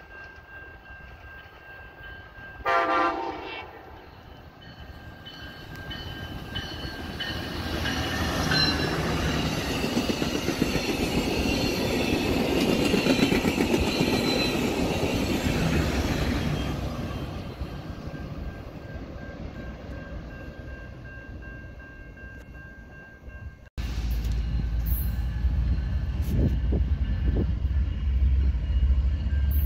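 An approaching Amtrak passenger train sounds its horn once, for about a second, three seconds in. The train then passes close by, and the rumble and clatter of its wheels on the rails build to a peak and fade away. Near the end, after a cut, an approaching diesel freight locomotive gives a steady low rumble.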